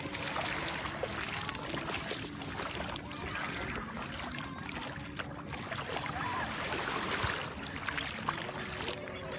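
Shallow seawater lapping and splashing softly around the legs of someone wading, with light handling knocks and a faint steady hum underneath.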